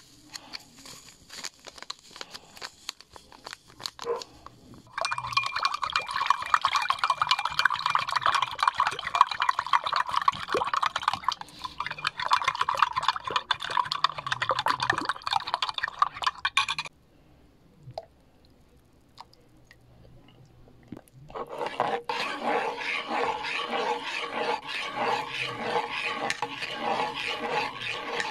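Light rustling and ticking as drink powder is poured from a foil packet, then a spoon stirring briskly in a drinking glass, scraping and clinking against the glass for about twelve seconds. After a short pause, a metal spoon scrapes round and round a metal pot, stirring a thick creamy mixture in steady rhythmic strokes.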